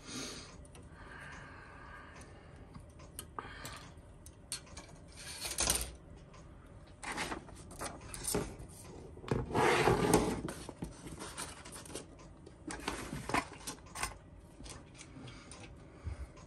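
Plastic model-kit parts being snipped from the sprue with side cutters and handled on a cutting mat: scattered clicks and light plastic rattles, with a longer rustle and scrape about ten seconds in.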